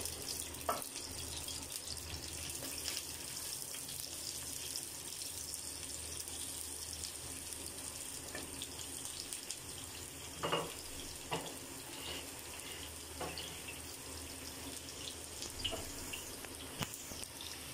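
Sliced onions sizzling steadily in hot oil in a nonstick wok, with a few short scrapes and taps from the spatula stirring them, most of them around the middle.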